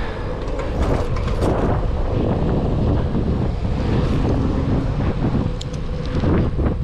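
Wind buffeting the microphone over the rolling rumble of a 700c single-speed bicycle's tyres on asphalt while riding.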